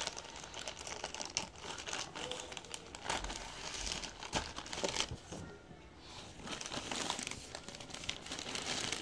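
Plastic courier mailer bag crinkling and crackling irregularly as it is handled and pulled open by hand.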